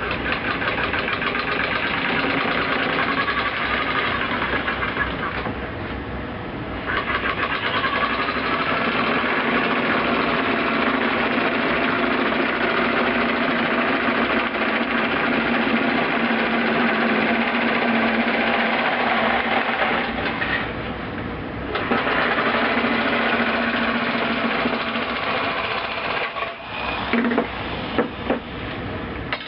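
Electric sheet-metal cutter running with a fast, even chatter as it cuts through sheet tin. It eases off briefly twice and stops a few seconds before the end, followed by a few sharp knocks.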